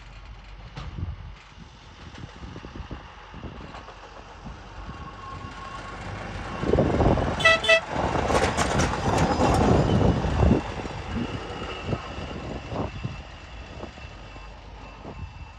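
TasRail hi-rail inspection truck running along the rails on its guide wheels, coming closer, passing right by and running away, loudest from about seven to ten seconds in. As it reaches the level crossing, a little past halfway, its horn gives two short toots as a warning.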